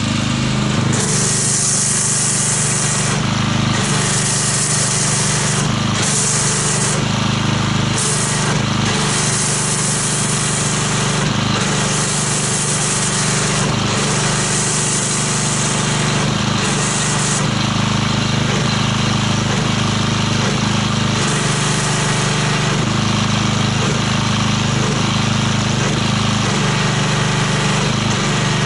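Kärcher electric pressure washer running steadily, driving an MTM foam cannon, with a hissing spray that starts and stops in short bursts of one to three seconds, about nine times.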